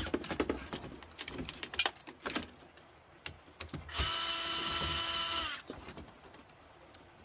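A few clicks and knocks of parts being handled, then a handheld power drill runs in one steady whine for about a second and a half, starting about four seconds in and dropping slightly in pitch as it stops.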